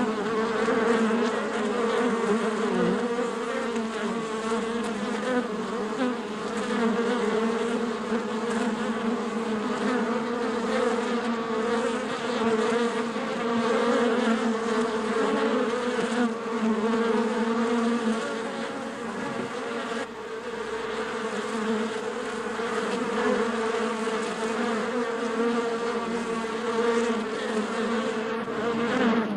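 Honeybee hive: many bees buzzing together in a steady, dense hum with a low drone and many wavering pitches above it.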